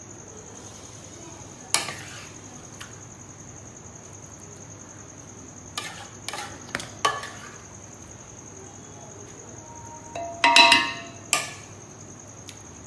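A metal spoon clinks and knocks against aluminium cooking pots as chicken masala is spooned onto rice. There is a sharp knock about two seconds in, a few more around six to seven seconds, and a louder ringing clatter near the end. A steady high-pitched whine sounds underneath.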